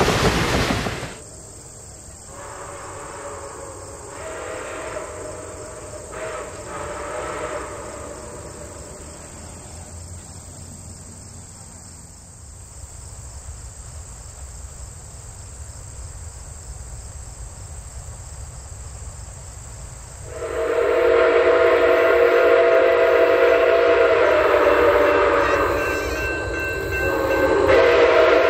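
Nickel Plate Road 765's steam whistle: faint distant blasts early on, then a loud multi-tone chime whistle sounding a long blast about twenty seconds in, breaking briefly and sounding again near the end. It opens with the last second of passenger cars rolling past close by.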